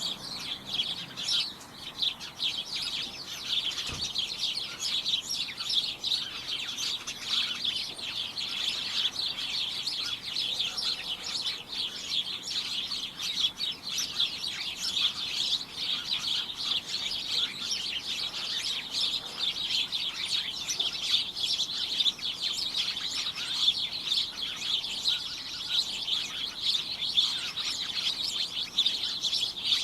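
A flock of small birds chirping all at once, a dense, unbroken chatter of short high chirps.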